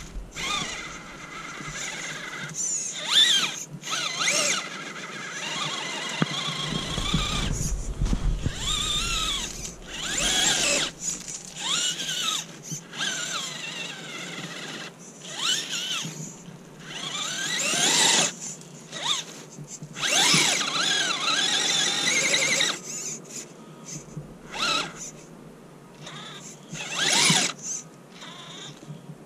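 Brushed electric motor of a small Axial UTB18 Capra RC crawler on a 3S battery, whining in repeated bursts as the throttle is worked. The pitch rises and falls with each burst, and there are short gaps between them.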